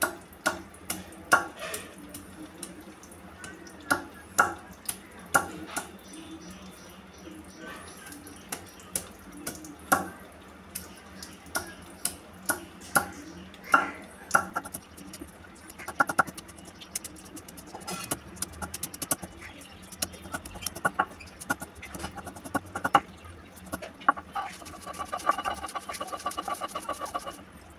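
Stone grinder (nora) knocking on garlic cloves and ginger on a flat stone grinding slab (sil), crushing them. The sharp, irregular knocks come about one or two a second. Near the end a fast, even, buzzy rhythm sets in.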